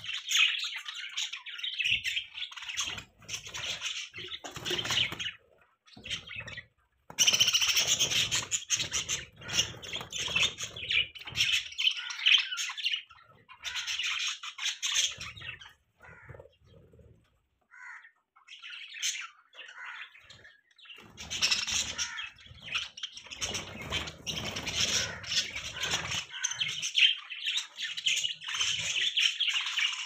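A flock of budgerigars chattering and chirping, a busy warble of many overlapping calls in stretches broken by a few brief lulls.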